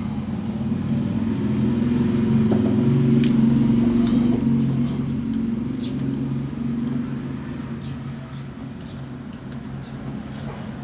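A motor vehicle's engine passing by, growing louder over the first few seconds and then fading away, with a few faint clicks on top.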